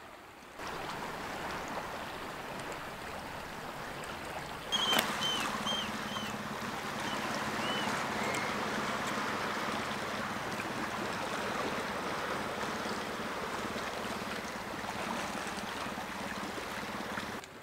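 Steady wash of sea water moving among shoreline rocks and rock pools. A sharp click comes about five seconds in, followed by a few short, high chirps.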